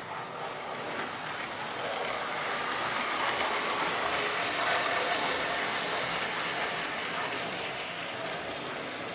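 Model railway train, a model Class 66 locomotive hauling coal wagons, running on the track with a steady mechanical whirr and rattle. It grows louder as the train passes close about halfway through, then eases off as the wagons and brake van follow.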